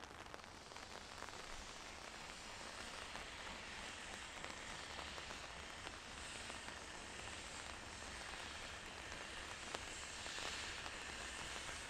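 Steady hiss of rain falling, joined by steam hissing from a standing steam locomotive. The hiss grows brighter and stronger over the second half.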